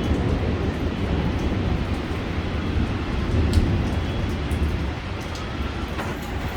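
Rolling thunder, a deep rumble that slowly dies away.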